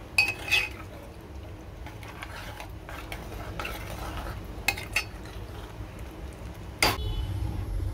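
Metal spoon stirring a thick potato, pea and paneer curry in a metal pot, clinking against the pot twice at the start, twice about five seconds in and once sharply near the end, over a low steady hum.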